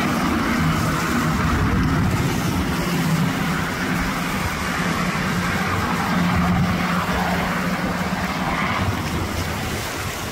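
H-60 Black Hawk-type military helicopter flying low past, its rotor and engine giving a steady drone that eases off slightly near the end.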